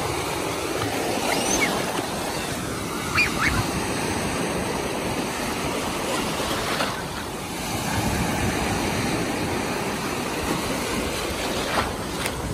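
Sea surf: small waves breaking and washing through the shallows, a steady rush of water.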